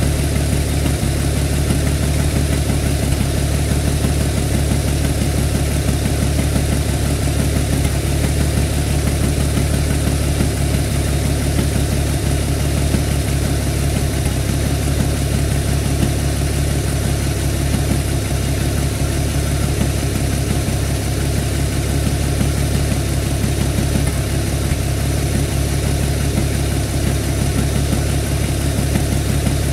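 An engine idling steadily, its speed and loudness unchanging throughout.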